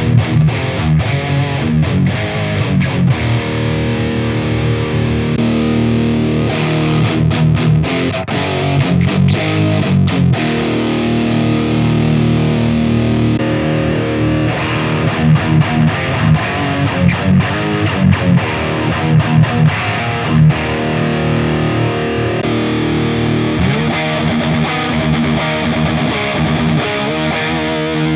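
Electric guitar played through an IK Multimedia Tonex One amp-modelling pedal, with a distorted amp tone. The tone changes abruptly about three times, as the pedal is switched to different amp models.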